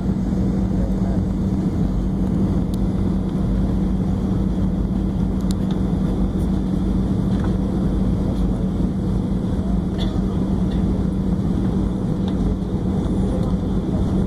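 Steady cabin noise inside an Airbus A320 on final approach, with a constant low hum underneath and no change in level.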